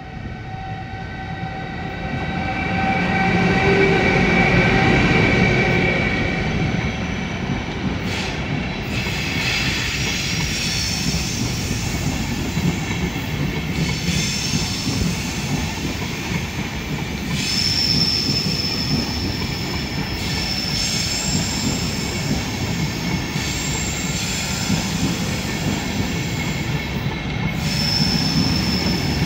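A Railjet passenger train rolls past close by, hauled by an electric locomotive and ending with its cab car. It begins with the locomotive's steady multi-pitched whine over the rumble of the wheels. As the coaches pass, a high, steady wheel squeal sets in partway through and returns near the end.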